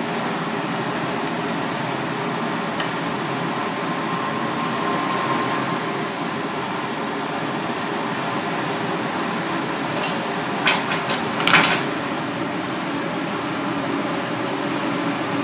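Steady hum of kitchen ventilation running throughout, with a quick cluster of light clinks and clicks of utensils against bowls and the board about ten to twelve seconds in.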